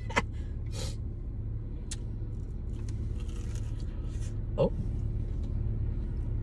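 Steady low hum of a car engine running while parked, with faint crackling of a flaky fried pie crust being bitten and chewed. A short hummed 'mm' comes about four and a half seconds in.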